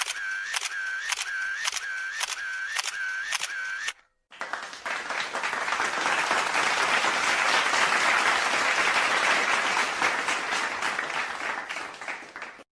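A camera shutter clicks repeatedly, about twice a second, for around four seconds. Then applause swells up and fades out near the end.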